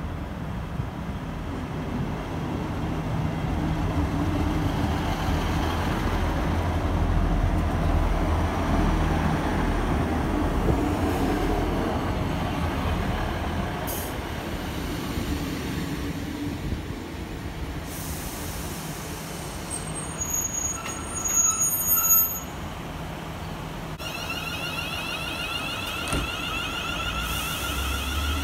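Class 158 diesel multiple unit running into the platform, its diesel engines rumbling steadily under wheel and brake noise as it slows. Brief high-pitched squeals about twenty seconds in are the loudest moment, followed by a steady high tone near the end.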